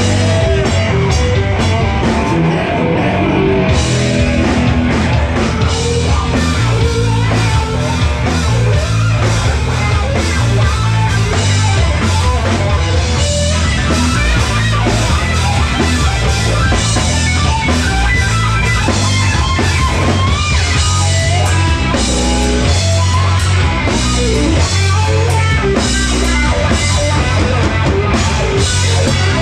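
Live rock band playing loudly: distorted electric guitars over a drum kit, steady throughout.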